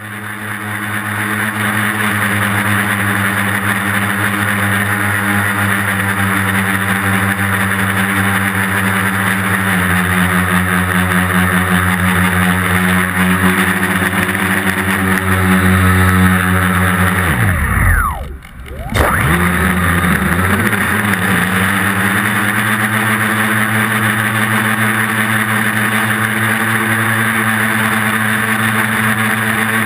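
Tricopter's brushless motors and propellers running steadily in flight. Just before 18 seconds in, the motors spool sharply down and nearly stop for about a second, then spool back up. This is a Spektrum receiver brown-out, which the pilot guesses came from something blocking the receiver.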